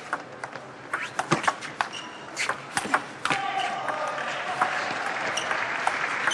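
Table tennis rally: the ball clicks sharply off the bats and the table in quick succession. About three seconds in, the crowd in the hall breaks into cheering and applause.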